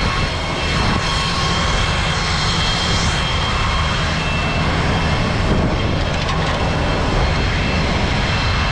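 Steady, loud engine noise with a constant low rumble and a high-pitched whine, typical of running engines on an airport apron.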